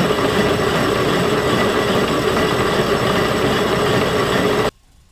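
Defiance horizontal boring mill running with a 5-inch carbide face mill cutting across the angle plate: a steady mechanical din with a constant tone through it. It cuts off suddenly near the end.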